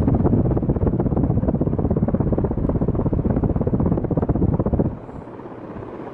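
Coolfan Huracan ceiling fan running at speed, its downdraft buffeting the microphone with a rapid, pulsing rush of air. The sound drops off abruptly about five seconds in to a lower, steadier rush.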